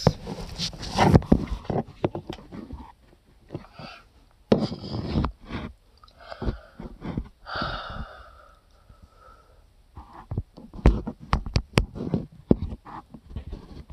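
Irregular knocks, taps and rustling from a phone being handled and repositioned next to a clear plastic bowl, close to the phone's microphone.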